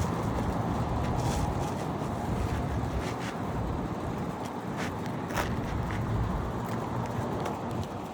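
Asphalt shingle being handled and slid into place on a roof: a handful of short scrapes and clicks over a steady low outdoor rumble.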